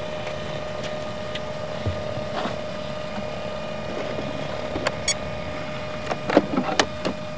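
A few light clicks and knocks of parts being handled and set into the cockpit of a large model helicopter, more of them near the end, over a steady background hum.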